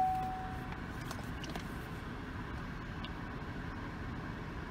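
Steady hum inside a car's cabin, with the engine idling and the fan blowing. A short beep-like tone sounds at the very start and fades within a second, and a few faint clicks follow.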